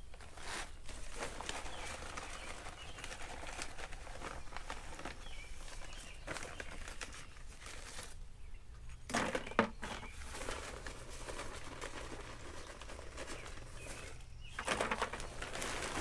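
Lava rock being taken from a plastic bag and dropped into a plastic 5-gallon bucket: the bag rustles and crinkles while small rocks clatter, with a short lull about eight seconds in and the loudest clatters just after.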